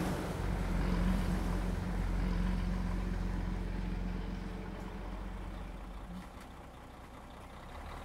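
Low, steady rumble of a motor vehicle's engine close by. It fades over the first six or seven seconds and swells slightly near the end.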